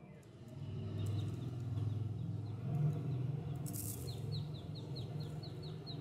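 Baby chicks peeping: short, high peeps, each falling in pitch, coming quickly at about five a second in the second half, over a low steady hum.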